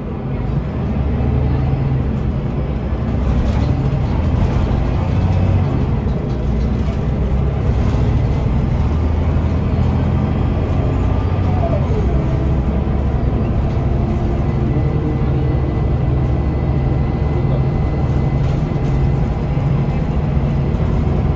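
Scania L94UB bus's Scania DC9 nine-litre five-cylinder diesel engine running under way, heard from inside the passenger cabin as a steady low drone. The drone gets louder about two seconds in, and a brief tone falls in pitch near the middle.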